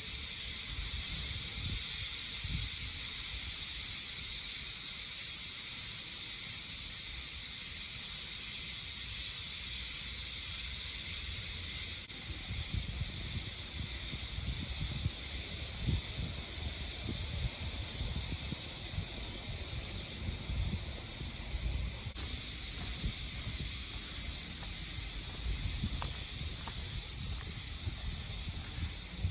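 Steady, high-pitched shrill of cicadas in chorus, with low rumbles of wind buffeting the microphone. The level steps down slightly about twelve seconds in.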